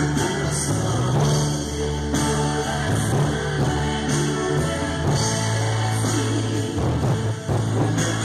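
Brazilian gospel music played loud through a car audio rack with its amplifiers: an instrumental passage with sustained bass notes and a steady beat, no vocals.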